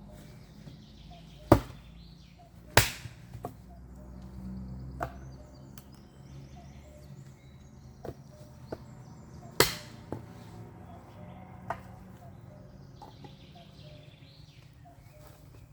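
Axe chopping wood: three hard, sharp strikes, about a second and a half in, near three seconds and near the middle, with a few lighter knocks between them at an irregular pace.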